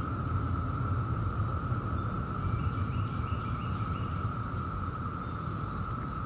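Steady outdoor insect chorus: one unbroken drone held at a single pitch, over a low steady rumble. A few faint chirps come briefly about two to three seconds in.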